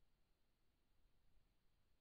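Near silence, with only a faint low rumble.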